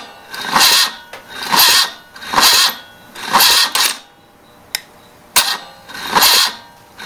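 1974 BMW R90/6 starter motor jumped straight at its solenoid, clicking in and then turning the engine over in slow, labored surges about once a second; it stops for a moment, clicks again and resumes the same sluggish surges. The owner takes this for a bad starter.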